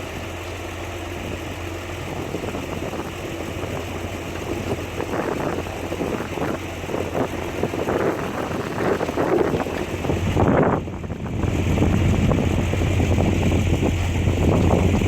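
Heavy diesel construction machinery running steadily, with irregular rattling and scraping noises in the middle and one louder burst about two-thirds of the way in, after which the low engine sound grows louder.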